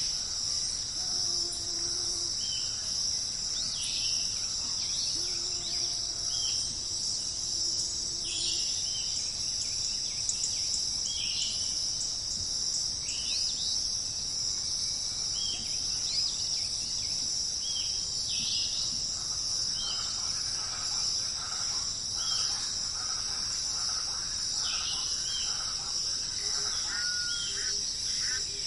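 Steady, high-pitched insect chorus (crickets or cicadas) running without a break. Over it, birds give short repeated calls every second or two, with a few low, drawn-out notes in the first third and a busier chatter of calls in the last third.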